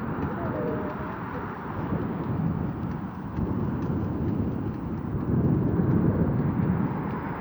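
Wind buffeting an unshielded phone microphone while cycling: a steady low rumble that swells louder for a second or so near the end, with a few faint clicks.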